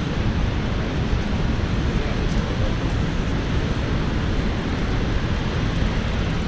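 Steady rushing of the Rhine's turbulent whitewater below the falls: an even, unbroken noise, heaviest in the low rumble.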